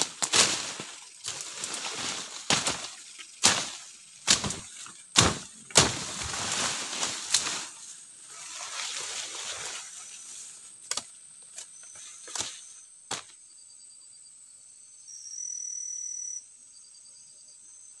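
Machete slashing through leafy forest undergrowth: over a dozen quick, sharp cuts, each with a rush of shaking leaves and stems, stopping about 13 s in. After that, a steady high insect drone and a few faint chirps, with a louder steady high call lasting about a second and a half near the end.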